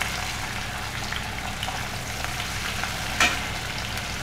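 Freshly added chopped onion sizzling and crackling steadily in hot mustard oil in an aluminium kadhai, with one sharp click about three seconds in.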